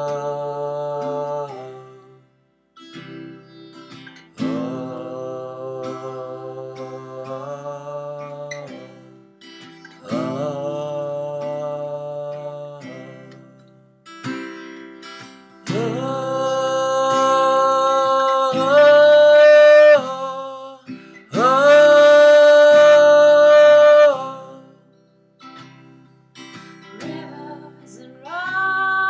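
Wordless sung 'oh' phrases, several long held notes that slide up into pitch as they start, over acoustic guitar. The phrases swell loudest in the second half.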